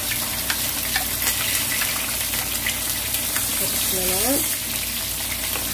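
Hot oil sizzling steadily with many small crackles: Atka mackerel fillets coated in potato starch pan-frying in plenty of cooking oil.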